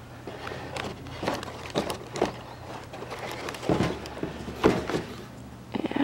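Handling noise: a plastic quadcopter drone and its cardboard box and foam packaging being moved about on a table, giving a string of irregular light knocks, taps and rustles.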